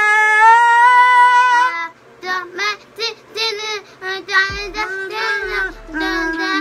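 A voice holding one long, high sung note for about two seconds, then a child singing or chanting in short broken phrases.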